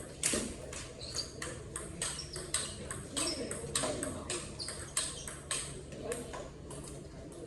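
Table tennis rally: the ball clicking off the bats and the table in quick, irregular succession, a couple of hits a second.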